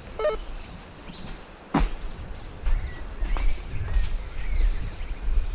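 Scattered bird chirps over a steady low rumble, with one sharp call falling in pitch about two seconds in.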